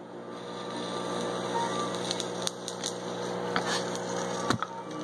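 Bong water bubbling steadily in a glass bong as smoke is drawn through it, with a few sharp clicks in the second half.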